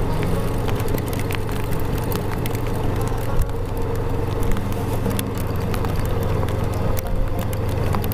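Motorcycle engine running steadily at low speed while the bike rolls over a gravel road, with rough road noise and a scatter of sharp ticks striking the bike.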